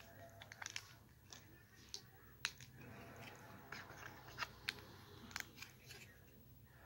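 Small plastic Lego bricks and plates clicking and knocking as they are handled and pressed together: a dozen or so short, sharp clicks at irregular intervals, the loudest about two and a half seconds in.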